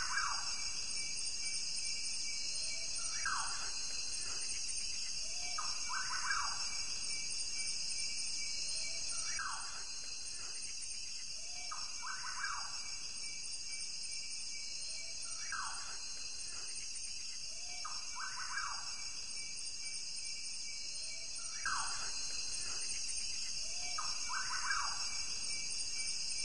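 Nature ambience: a steady high-pitched insect chorus, with a short bird call repeating about every three seconds.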